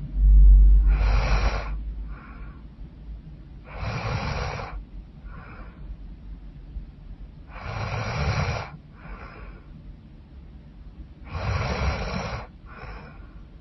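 A woman snoring loudly: four long, noisy in-breaths about every three and a half to four seconds, each followed by a shorter, softer out-breath. A deep low rumble comes in the first second.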